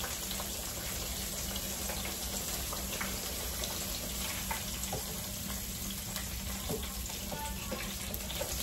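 Pork chops deep-frying in hot oil in a fryer: a steady hiss of bubbling oil with scattered faint crackles, over a low steady hum.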